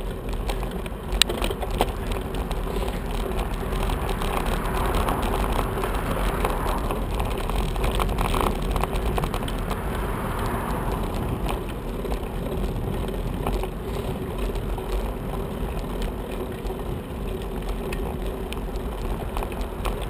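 Riding noise from a bicycle-mounted camera in street traffic: steady wind and tyre noise over a rough road, with frequent small rattles and clicks. Traffic noise swells and fades in the middle.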